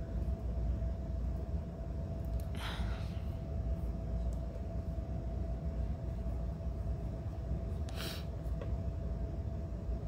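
Quiet handling of a clay mug cylinder on a work board: two short brushing noises, about three seconds in and about eight seconds in, over a steady low room rumble and a faint steady hum.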